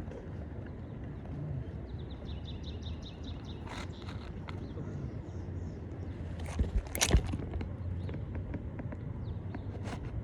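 Knocks and scraping from work on an asphalt shingle roof over a steady low rumble, with one sharp knock about seven seconds in the loudest. A bird trills briefly about two seconds in.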